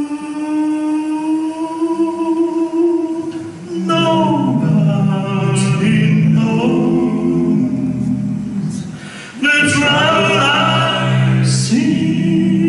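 Male vocal quartet singing a cappella in close harmony. A long held chord opens, then the voices move through rhythmic phrases, with a brief break about three-quarters of the way through before full singing resumes.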